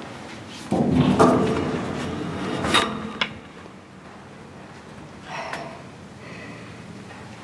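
Steel ladder and diamond-plate walkway clanking and scraping under someone climbing down: a loud rattling scrape about a second in, two sharp clanks near three seconds, then a softer knock past five seconds.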